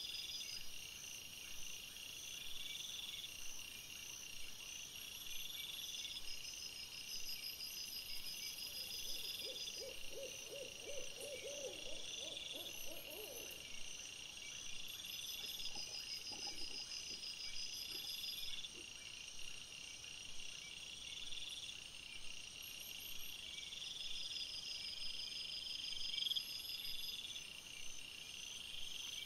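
Night insects chirping in steady, repeating high trills. A few seconds before the middle, a run of quick, evenly pulsed low calls lasts about four seconds.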